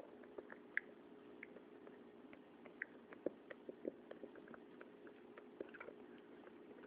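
Faint, irregular small clicks and taps, sometimes in quick little clusters, over a steady low hum of room tone.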